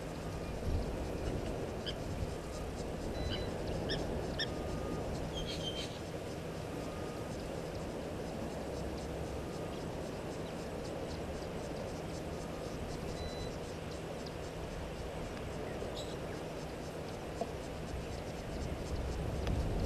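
Outdoor bush ambience at a waterhole: fine, fast insect ticking high up over a steady low hum, with a few short high bird chirps between about two and six seconds in. A low rumble grows near the end.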